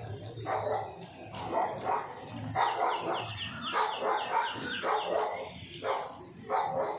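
A dog barking repeatedly.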